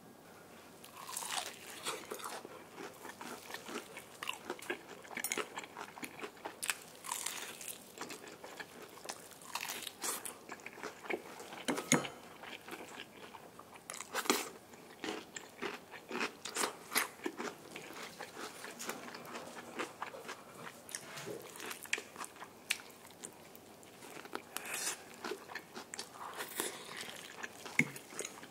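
Close-miked biting and chewing of crispy-battered fried chicken, the crust crunching and crackling in irregular bursts.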